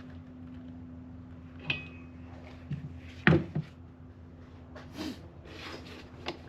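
Scattered metallic clicks and knocks of hand work on a car's wiper arm as it is seated and its nut tightened, one with a short ring, the loudest about halfway through. A steady low hum runs underneath.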